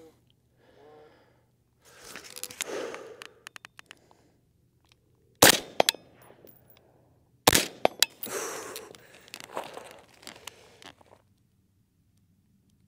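Two rifle shots from an AR-style rifle, about two seconds apart, with softer rustling and a few light clicks of handling around them.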